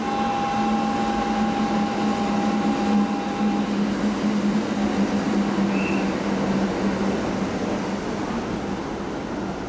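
Hanshin 1000 series electric train standing at a station platform with a steady hum from its onboard equipment. A held tone sounds over the first few seconds and then stops.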